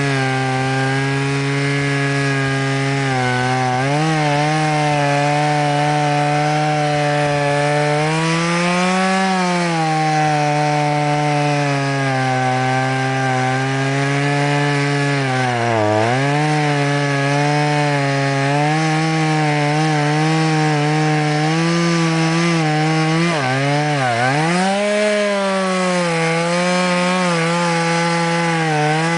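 Stihl MS 170 two-stroke chainsaw running at high revs while cutting alder logs. Its pitch rises and sags as the chain bites, and it bogs down sharply twice under load in the second half.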